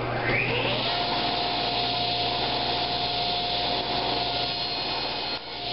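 Table saw switched on: its motor whine rises for about a second as the blade spins up to speed, then runs steadily.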